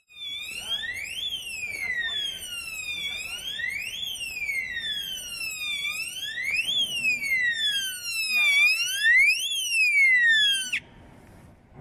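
Electronic fire alarm siren of a vehicle fire suppression system's control panel, wailing up and down about once every three seconds, with a faint pulsing beep alongside in the second half. It signals that the system has been triggered, and it cuts off suddenly near the end when the Alarm Off button is pressed.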